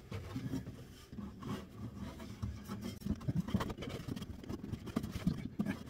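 Sound-deadening mat being worked into a van's wall panel by hand: irregular light scraping and rustling with dull bumps.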